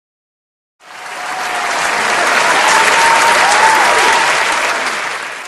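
A crowd applauding: clapping fades in about a second in, swells to full strength, then fades away near the end.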